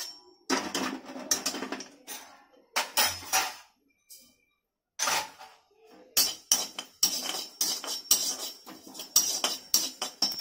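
Perforated metal spatula scraping and clinking against a kadai. First the pan is scraped out, then after a short pause, about six seconds in, quick stirring begins as cumin seeds dry-roast in the pan.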